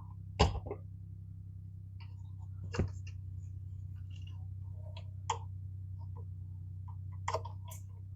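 Scattered light clicks and knocks from handling the parts of a sliding compound miter saw, a few sharper ones about half a second in, near the middle and near the end, over a steady low hum.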